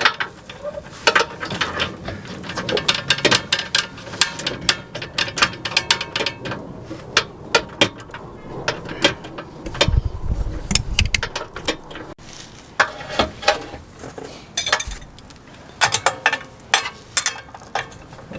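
Ratchet wrench clicking in quick runs as a camber arm bolt is tightened, with a brief low rumble near the middle.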